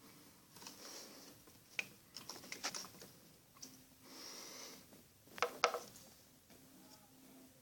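Red-eared and yellow-bellied sliders splashing and paddling at the water surface of an aquarium while competing for food, with scattered light clicks and knocks. The loudest knocks come about five and a half seconds in.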